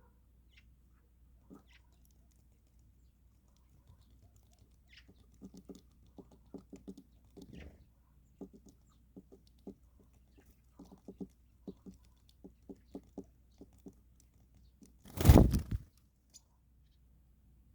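Birds pecking at feed: runs of soft, irregular taps. A single loud, brief rustling burst of noise comes near the end.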